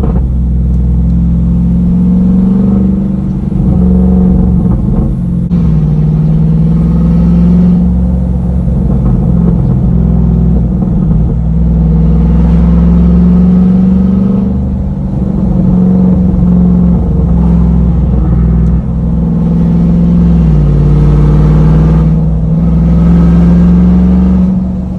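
Jeep Wrangler Rubicon 392's 6.4-litre HEMI V8 running through a straight-piped exhaust that dumps off the X-pipe just ahead of the rear axle, heard from inside the cab while driving. The loud low engine note dips in pitch several times and climbs back as the Jeep gets on and off the throttle.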